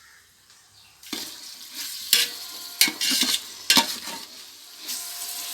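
Onion and tomato masala frying in oil in a pot, stirred with a spoon. The sizzling starts about a second in, and the spoon knocks and scrapes against the pot a few times.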